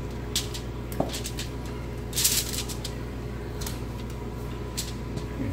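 Aluminum foil crinkling in a few short rustles as a raw, spatchcocked turkey is turned around and set down on it, with a sharp click about a second in and the loudest rustle a little after two seconds.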